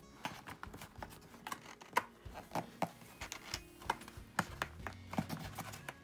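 Hands handling a tight cardboard puzzle box, fingers tapping, scraping and clicking on it in an irregular patter while working to pry it open, with the sharpest tap about two seconds in.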